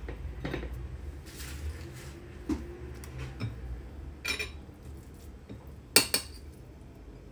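Dishes and utensils knocking and clinking on a kitchen counter: several separate knocks, the loudest a sharp clink about six seconds in, over a low steady hum.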